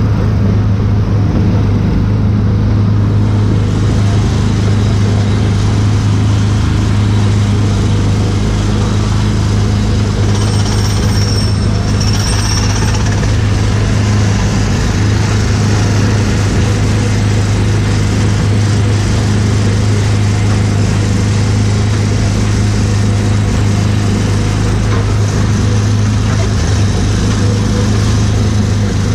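Small gasoline engine of an Autopia ride car running steadily at cruising speed, a constant low drone heard from the driver's seat. A brief high-pitched tone joins in about ten seconds in.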